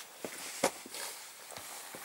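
Footsteps of a person walking up, heard as a few short, irregular knocks, the loudest a little past half a second in.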